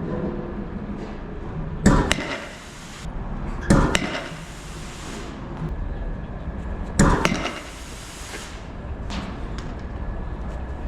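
Three loud, sharp cracks about 2, 4 and 7 seconds in, each followed by a short hissing ring, and a fainter knock later, from a 200 km/h batting cage: fastballs from the pitching machine striking hard.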